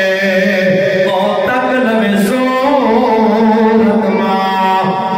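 A man singing a devotional naat into a microphone in long held notes that bend slowly in pitch.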